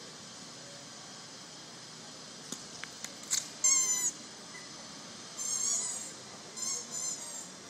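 A few sharp clicks, then runs of loud, high-pitched animal calls, each short call bending up and then down in pitch.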